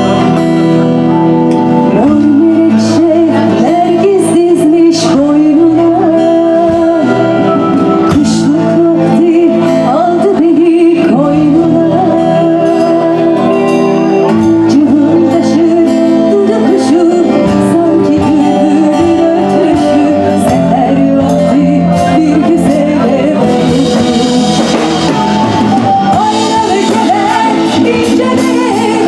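Live band music with a woman singing a melody over guitar and other instruments, played steadily and loud.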